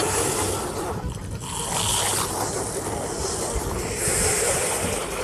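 The soundtracks of a couple of hundred cartoon audition clips playing at once: their character voices, music and effects pile into a dense, noisy din in which no single voice or tune stands out. It swells and dips a little.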